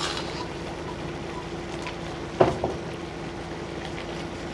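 Steady hiss of Maggi noodles simmering in a covered kadhai on the stove, with a sharp knock about two and a half seconds in.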